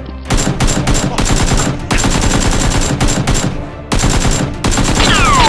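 Rapid automatic gunfire sound effect, long bursts of fast shots with a brief break about four seconds in. Near the end several falling whistles cut in over the shooting.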